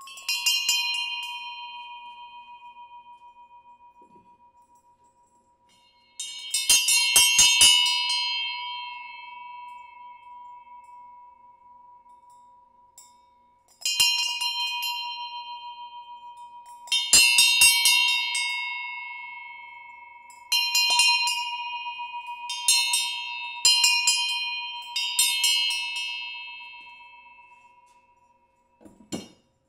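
A small hand-cast bell-bronze bell is struck repeatedly, sometimes several times in quick succession. Each strike rings out with bright overtones that fade over a few seconds, over a steady, slowly dying hum.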